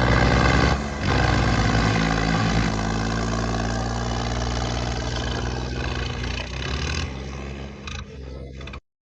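Diesel tractor engines running hard under heavy load as the tractors pull against each other. The steady engine drone fades somewhat near the end, then cuts off abruptly.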